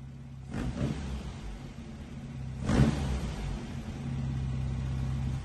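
Custom-built 2332cc air-cooled VW flat-four Baja engine running through a stainless buggy exhaust with A1 mufflers, revved briefly twice over a steady run, the second rev louder.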